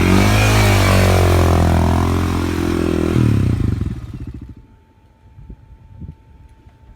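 A vehicle engine revving, its pitch rising and falling, then fading away about four seconds in, leaving quiet with a few faint clicks.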